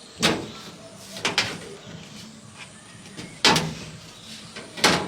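Four sharp bangs, unevenly spaced about one to two seconds apart.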